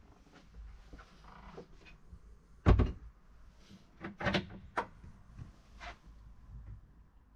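Motorhome cupboard doors: one shuts with a sharp knock about three seconds in, then a push-button latch clicks and a curved lower cupboard door swings open with a few quick knocks and clicks.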